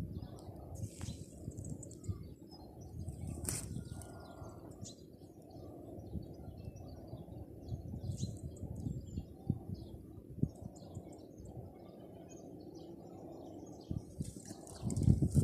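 Small birds chirping in short scattered calls over a steady low rumble, with a louder rush near the end.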